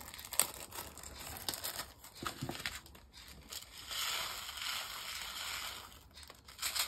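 Small clear plastic bag of diamond painting drills crinkling and rustling as it is handled, with a few small clicks. A longer, denser rustle comes from about four to six seconds in.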